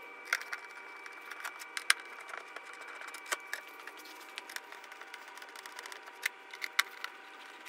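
Scattered small metallic clicks and ticks from a T-handle Torx driver backing out the T27 windshield bolts on a motorcycle fairing. A steady background hum runs under them.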